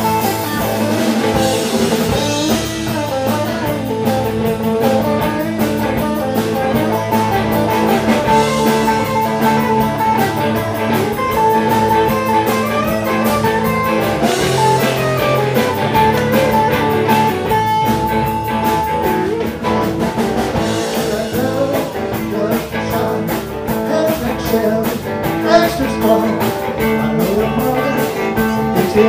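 Live electric blues band playing an instrumental break: electric guitar lead lines with held and bending notes over drums, bass and rhythm guitar.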